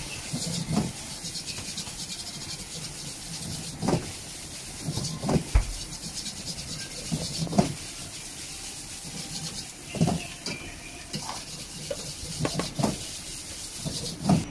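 Fried rice being stir-fried in a wok: a steady sizzling hiss, with the metal ladle scraping and knocking against the wok at irregular intervals.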